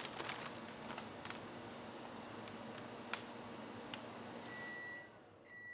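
Microwave oven running with a faint steady hum that cuts off near the end, followed by two high beeps signalling the short heating cycle is done. A few faint clicks along the way.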